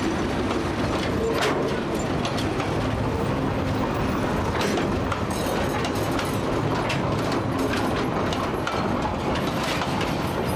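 Tasrail freight train's container flat wagons rolling past at close range: a steady rumble of steel wheels on rail with scattered sharp clicks.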